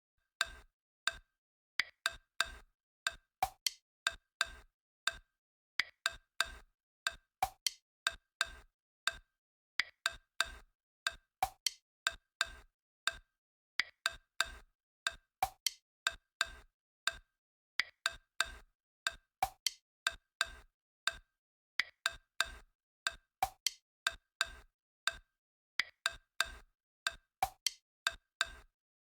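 Sparse electronic percussion beat: short, sharp, faintly pitched clicks in a pattern that repeats about every two seconds, with dead silence between hits.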